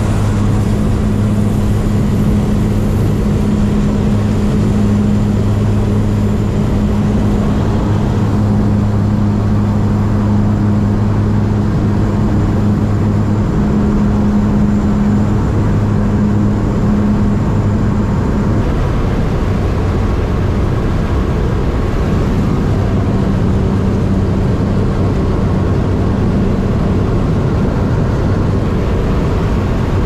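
Floatplane engine and propeller droning steadily, a loud, even low hum whose tone shifts a little past halfway.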